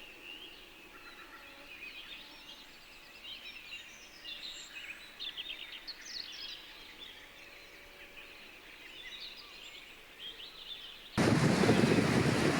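Birds chirping and singing in short, high calls and trills over a faint outdoor background. About eleven seconds in it cuts abruptly to a much louder, steady rush of surf and wind.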